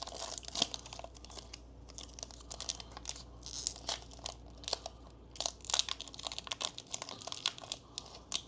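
Foil wrapper of a Pokémon trading card booster pack being crinkled and torn open by hand, in irregular crackling bursts.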